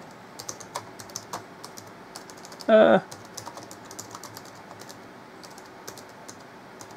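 Keys on an AlphaSmart NEO portable word processor's keyboard clicking as a sentence is typed at an even pace. A short voice sound cuts in about three seconds in and is the loudest thing heard.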